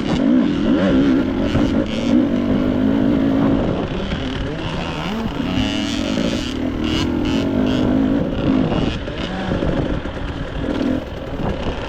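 Husqvarna TC65's small two-stroke dirt-bike engine running under load, its pitch rising and falling again and again as the throttle is opened and eased off.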